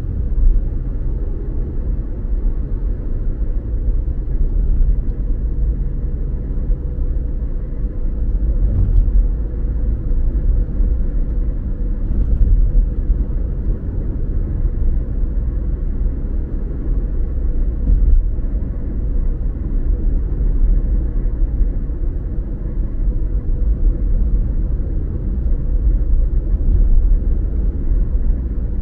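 Car driving at a steady speed: a continuous low rumble of road and engine noise, with a faint steady hum and a few light bumps.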